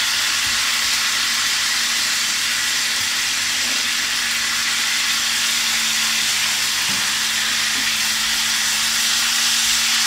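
Peppers frying in a covered pan on maximum heat: a steady, loud sizzling hiss.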